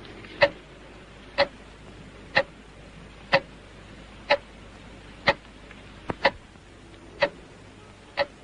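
Clock ticking steadily about once a second, with one small extra click about six seconds in.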